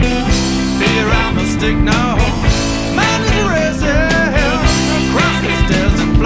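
Rock music with a steady drum beat and a bending melodic lead line through the middle.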